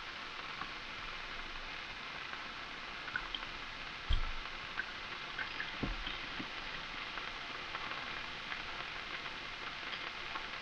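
Chicken, potatoes and vegetables sizzling steadily in a skillet, with small crackles. Two dull knocks come about four and six seconds in.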